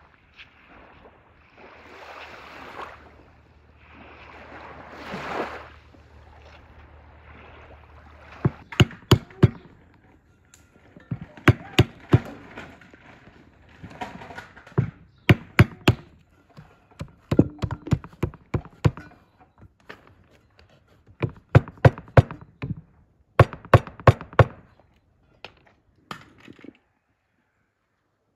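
Small waves washing onto a shell-strewn beach, swelling and falling. About eight seconds in, walnuts are cracked open on a wooden board: clusters of sharp cracks and knocks that stop a little before the end.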